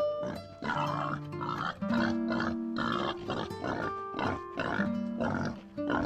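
Boars grunting in short calls repeated every half second or so, over background music with held notes.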